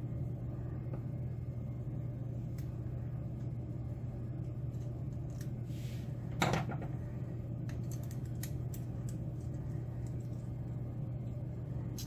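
Small metal clicks from handling an American Lock padlock fitted with an Abus interchangeable core as its shackle is worked, with one sharper click about six and a half seconds in. A steady low hum underlies it.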